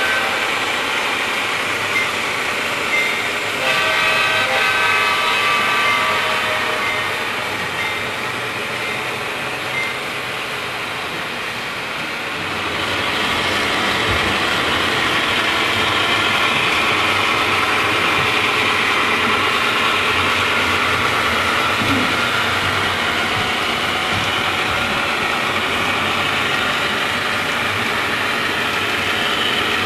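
HO-scale model train running past: a consist of model diesel locomotives and covered hopper cars making a steady running sound, with a few short clicks in the first few seconds.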